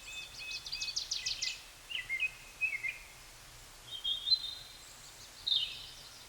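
Small songbirds singing in short, high chirping phrases, several phrases with brief pauses between them.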